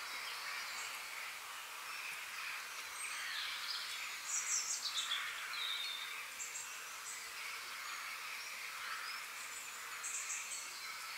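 Outdoor woodland ambience: a steady hiss with small birds chirping, a quick run of high chirps about four seconds in and shorter ones later and near the end.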